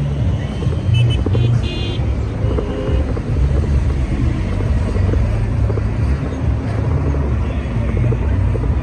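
Road traffic running past with a steady low rumble, and a brief high-pitched beep-like tone about a second and a half in.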